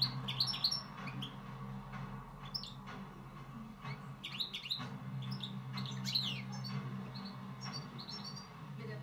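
European goldfinch singing: a run of quick, high twittering chirps and short trills, over a steady low hum.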